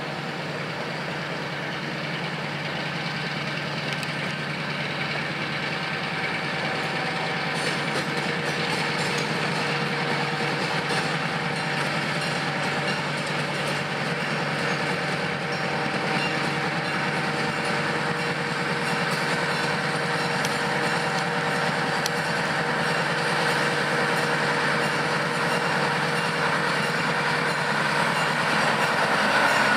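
Several orange Indiana Harbor Belt diesel switcher locomotives are moving slowly, running as a steady drone that grows louder as they draw near and pass close by toward the end.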